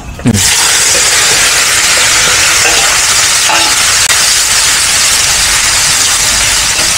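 Cubes of tofu frying in hot oil in a wok, a loud steady sizzle that starts suddenly just after the beginning, while a metal spatula stirs them.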